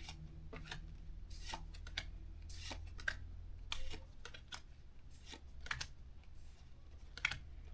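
Pokémon trading cards being handled and flipped through one by one: an irregular run of short, crisp card clicks and slides.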